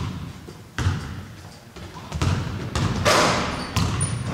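Several dull thumps at uneven intervals, with a short rush of noise about three seconds in and faint high squeaks near the end.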